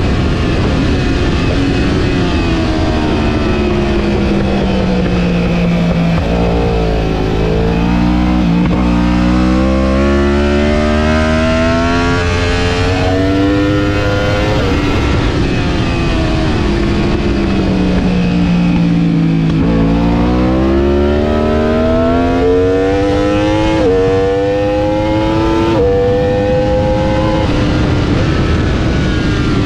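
Racing motorcycle engine heard from onboard: the revs fall as the rider slows for a corner, then climb again through several quick upshifts, twice over, with a steady rush of wind.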